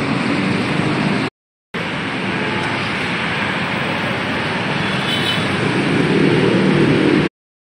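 Steady road traffic noise from passing cars, broken by a brief dead gap about a second and a half in and cutting off suddenly near the end.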